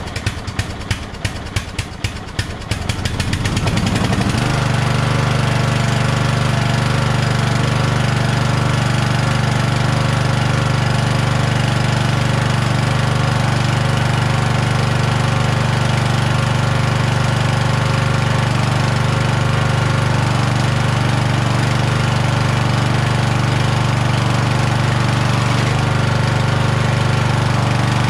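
Kohler engine of a Toro LX460 lawn tractor being cranked over with a rapid knocking, catching about four seconds in and then running steadily.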